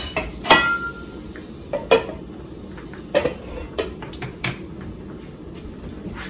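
A spoon clinking and knocking against a frying pan of cooking vegetables, and a lid being set on the pan: a handful of sharp knocks, one ringing briefly about half a second in. A faint steady sizzle sits under them.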